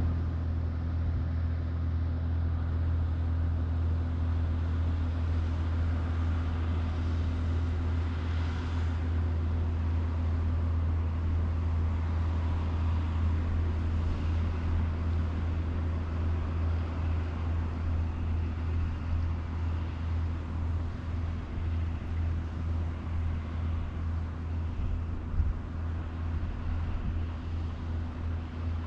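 Large diesel engine running steadily, a deep low drone that pulses slightly later on.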